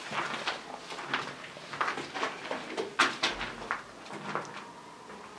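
Footsteps of people walking over a debris-strewn brick tunnel floor: short scuffs and knocks about every half second, thinning out near the end.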